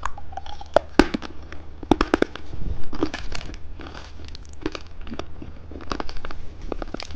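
Plastic candy wrapper crinkling and tearing in irregular crackles and clicks as a caterpillar lollipop is unwrapped.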